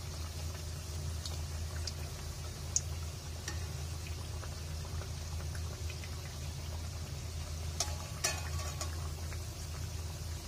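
Shankarpali sizzling as they deep-fry in hot oil in a metal kadhai, under a steady low hum. The perforated metal spoon clinks against the pan now and then, most sharply in a short cluster about eight seconds in.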